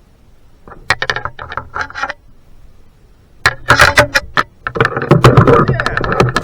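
Rapid clicking and clattering in two bouts, a short one about a second in and a longer, denser one from about three and a half seconds on.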